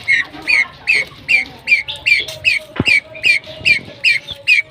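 A bird squawking in a rapid, even series of about a dozen short calls, two to three a second, with a single knock a little before the middle.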